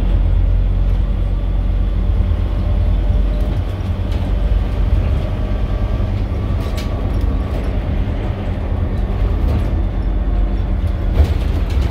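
Scania CN270UB city bus's DC9 five-cylinder diesel running steadily as the bus drives, a deep low rumble with a few sharp clicks and rattles.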